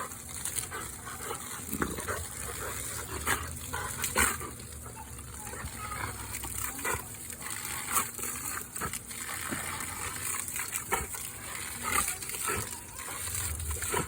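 Water spraying from a garden hose while a Rottweiler bites and gulps at the stream: a steady hiss of spray broken by frequent irregular splashes and snaps.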